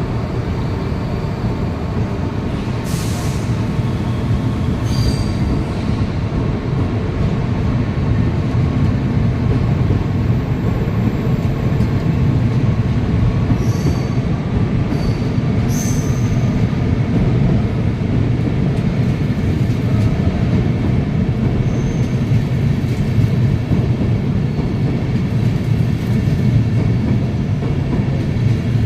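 A locomotive-hauled passenger train pulling out and rolling past at low speed. A steady rail rumble grows a little louder, with faint wheel squeal and a few short, high ticks.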